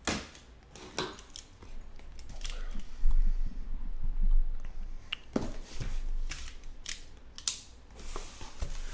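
Sealed cardboard card case being handled and turned around on a tabletop: a run of knocks, taps and scrapes. The loudest part is a low rumbling thud about three seconds in.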